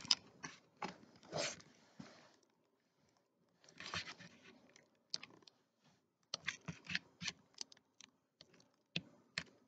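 Faint handling noise of toys being set up: a plush Beyblade and a plastic Beyblade stadium knocked and shifted about, giving brief rustles about a second in and near four seconds, then a run of quick taps and clicks in the second half.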